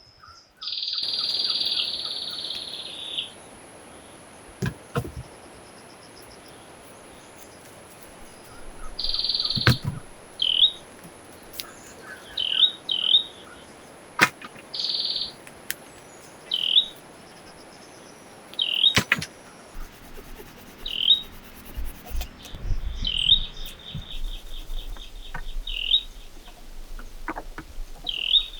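Birds calling: short high chirps repeated every second or two, with a few longer buzzy calls lasting a second or two. Several sharp clicks or knocks come between them.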